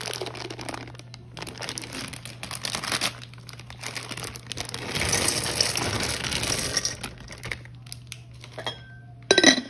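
Candy corn and candy pumpkins poured from a crinkling plastic bag into a glass jar, the candies pattering against the glass; the pour is heaviest about five to seven seconds in, then thins out. A brief loud clatter near the end.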